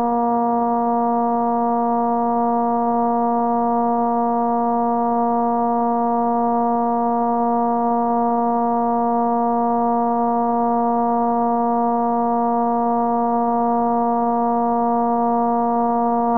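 Homemade stripboard-built modular synthesizer holding one sustained drone rich in overtones, unchanging in pitch and loudness.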